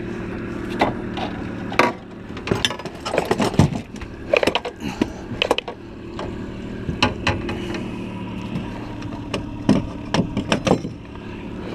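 Irregular knocks, thuds and clatters on an aluminium boat deck as a freshly netted salmon and the landing net are handled, over the steady hum of an idling outboard motor.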